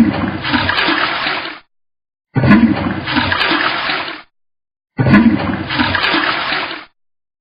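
A short recorded water sound effect, splashing and rushing, played three times in a row. Each play lasts about two seconds and starts loudest, with a brief silence between repeats.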